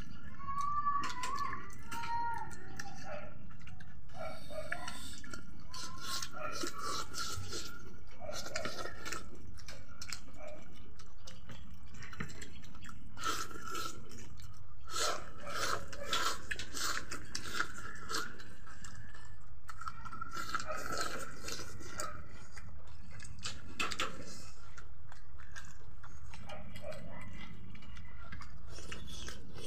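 Close mouth sounds of several people eating rice and beef curry by hand: chewing with frequent wet smacks and clicks.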